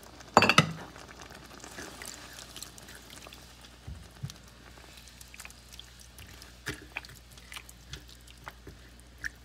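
A sharp clatter about half a second in, then a silicone spoon stirring a pan of simmering tomato and pepper sauce: soft wet sloshing with scattered light taps against the pan.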